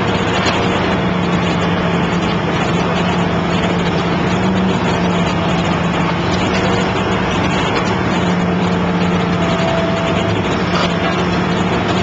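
Excavator engine and hydraulic system running steadily while powering a hydraulic pile cutter clamped around a concrete pile: a constant low hum under a broad mechanical rush.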